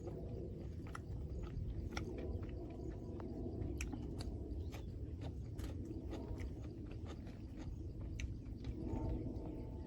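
Close-up chewing and biting of a person eating pork curry with rice, with many short wet mouth clicks and smacks scattered through, over a steady low background rumble.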